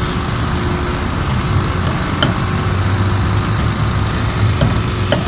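Generator engine running steadily, its even low hum powering the stall's lights, with a few faint clicks over it.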